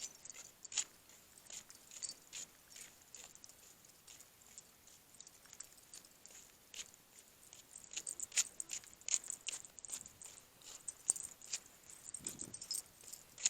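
A walking dog's collar tags jingling, with many short irregular clicks, busiest about eight to ten seconds in.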